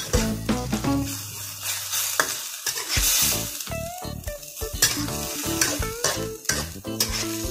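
Stir-frying greens and chillies in a wok: a spatula scrapes and knocks against the pan again and again while the food sizzles.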